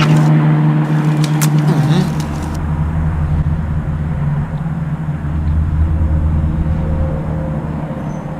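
Car engine idling, heard from inside the cabin as a steady low drone, with a few brief rustles or clicks in the first two seconds.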